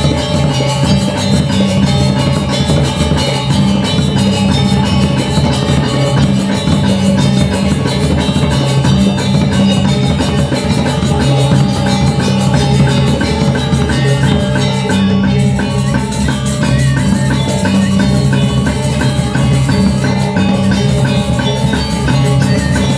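Balinese gamelan playing: bronze metallophones and gongs ringing in dense, fast note patterns over steady low tones, with kendang drums beating along.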